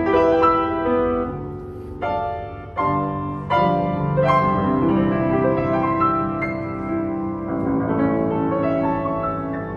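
1981 Yamaha W106B upright piano being played: a slow passage of chords, struck several times in the first few seconds, then held notes ringing on.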